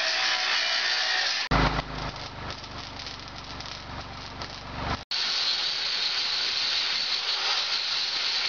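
Angle grinder grinding steel, a steady high-pitched hiss. About a second and a half in it cuts abruptly to an electric arc welder crackling and buzzing for about three and a half seconds, then cuts back to the angle grinder.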